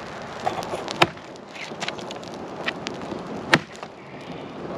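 Campfire of dry firewood crackling: scattered small ticks and two loud, sharp cracks, one about a second in and a louder one past three seconds.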